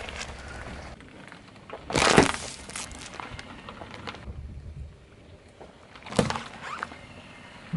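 A car tyre rolls over a foil coffee bag, which gives a loud crackling crunch about two seconds in. A shorter crunch follows just after six seconds as the tyre runs over a plastic pudding cup.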